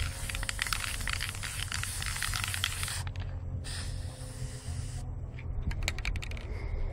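Aerosol spray-paint can (Krylon) spraying in bursts: a long hiss that stops about three seconds in, then a shorter hiss a moment later, followed by a few light clicks.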